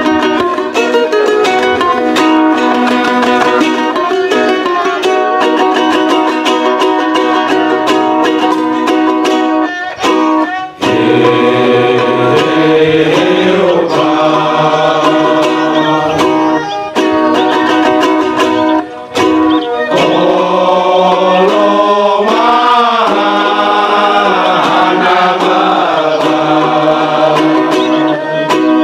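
A small string band of violin and ukuleles plays a lilting strummed and plucked accompaniment. From about eleven seconds in, a choir of men's voices joins in singing the song over the strings.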